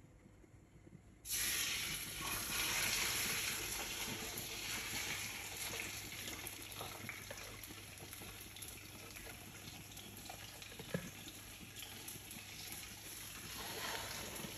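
Fish frying in hot oil in a wok: a loud sizzle starts suddenly about a second in as a piece goes into the oil, then eases to a steady sizzle that swells again near the end. A single sharp click about eleven seconds in.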